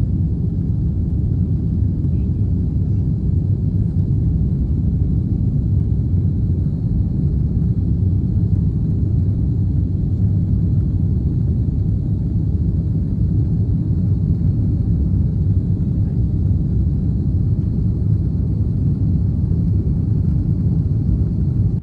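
Steady low rumble of an Airbus A330-300's engines and airflow, heard from inside the cabin as the airliner climbs out after take-off.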